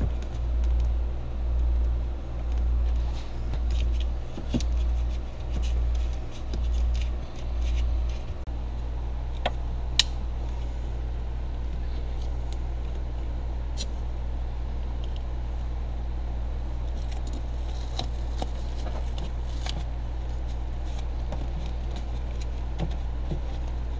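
Small plastic clicks and light rattles of wiring-harness connectors and interior trim pieces being handled, with one sharp click about ten seconds in. Under them a low hum that pulses about once every 0.7 s for the first eight seconds, then runs steady.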